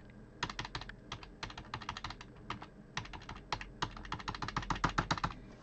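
Computer keyboard keys, the arrow keys, tapped rapidly and repeatedly in an uneven run of clicks, each press setting the animated letters to a new random colour.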